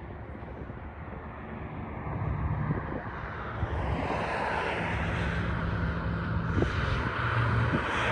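Engine drone growing steadily louder from about two seconds in, a low hum under a wide rushing noise.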